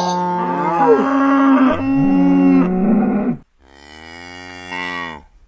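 A loud, long, drawn-out wailing cry with several pitches sounding at once, bending up and down. After a brief break comes a quieter, lower cry that slides downward in pitch and cuts off near the end, the dying wail of the erased figure.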